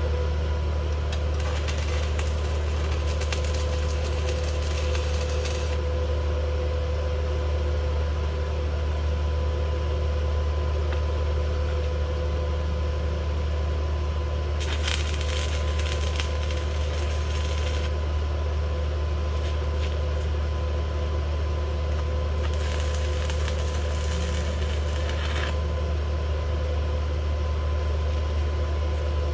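A steady low electrical hum with a faint whine, broken three times by a few seconds of hissing crackle.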